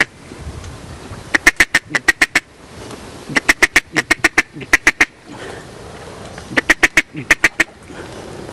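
Mallard quacking: three quick runs of loud, short quacks, each run several notes long, with pauses between.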